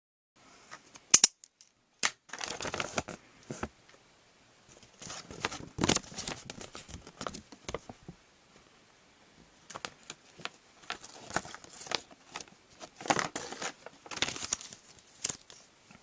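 Close-up handling of a LEGO minifigure packet and its small plastic parts: the plastic wrapper crinkles and tears in short bursts, with sharp clicks of pieces.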